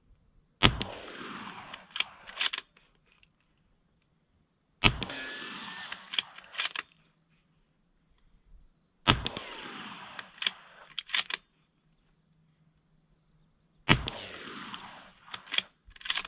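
Four rifle shots from a Q Mini Fix bolt-action rifle in 300 Blackout, about four to five seconds apart, each with an echo trailing off. After each shot come a few quick metallic clicks as the bolt is worked to chamber the next round.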